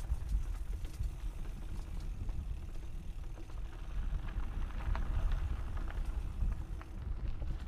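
Mountain bike riding down a dirt trail, picked up by a camera on the bike or rider: a steady low rumble with scattered clicks and rattles from the bike over the rough ground. The hiss swells for a couple of seconds around the middle.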